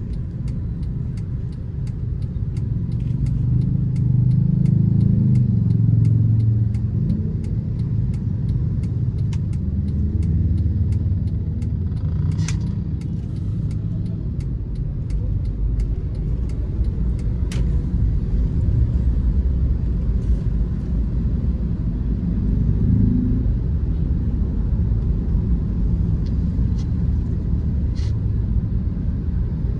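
Cabin sound of a 2012 Honda Freed's 1.5-litre four-cylinder i-VTEC engine and road rumble while driving. The engine note rises as the car speeds up, about four seconds in and again briefly later.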